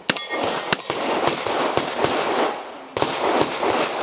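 Two revolver shots about two-thirds of a second apart near the start, the first followed by a brief high metallic ringing.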